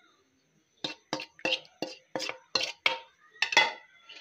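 A slotted metal spoon knocking and scraping against a metal pot while stirring chicken pieces in yogurt masala. About ten short clinks start about a second in, roughly three a second, with the loudest near the end.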